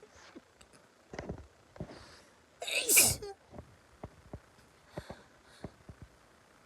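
One loud, sudden sneeze about three seconds in, with a few quieter short sounds before and after it.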